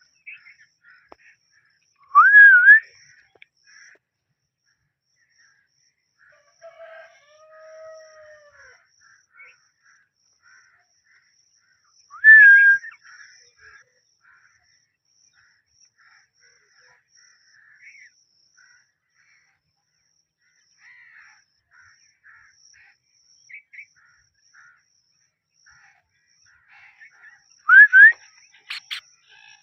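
Green parrot giving three loud, short calls that rise in pitch and then level off, about two seconds in, about twelve seconds in and near the end, with faint chirps in between.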